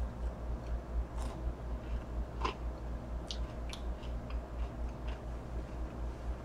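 A person chewing boneless chicken wings, with scattered soft mouth clicks and ticks, over a low, evenly pulsing hum.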